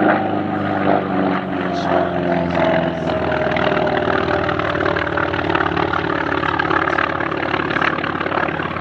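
Radial-engined WWII navy piston fighter flying past, its engine and propeller drone falling slowly in pitch as it passes.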